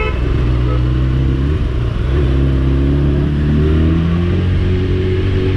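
Bajaj Dominar 400's single-cylinder engine accelerating under load, with wind noise. Its pitch climbs, dips briefly about one and a half seconds in as it shifts up a gear, then climbs again.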